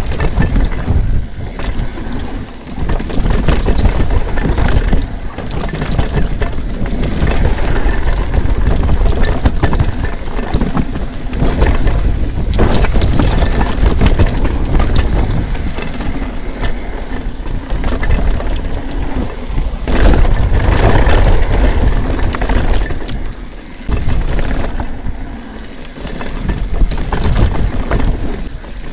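Mountain bike descending a rough dirt and rock downhill trail, heard from a camera on the rider: heavy wind buffeting on the microphone with tyres rolling over loose dirt and stones and the bike rattling and knocking over bumps.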